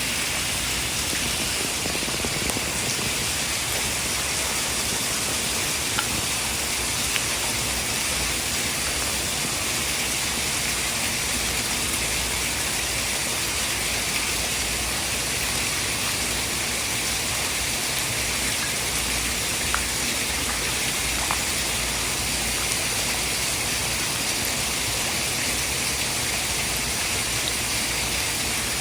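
Steady, even hiss of falling water like heavy rain, with a few faint ticks.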